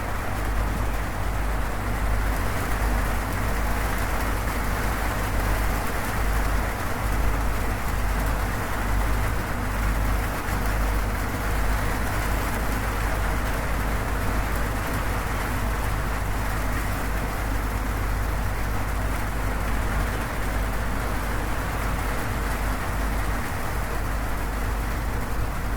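Steady, even rain on a zinc roof, with a deep constant rumble underneath.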